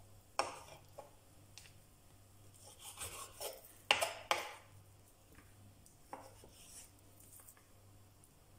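Kitchen knife slicing raw chicken breast on a wooden cutting board, the blade knocking on the board in scattered strokes, the loudest two close together about four seconds in.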